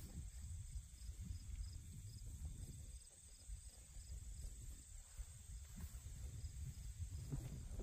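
Faint insects chirping outdoors in an even pulsed rhythm, about three chirps a second, over a low rumble of wind or handling on the microphone.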